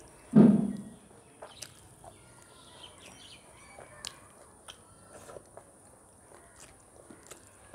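Eating rice by hand: a brief loud mouth sound about half a second in, as her fingers go to her mouth. After it come soft chewing and scattered faint clicks as rice grains are picked off a steel plate.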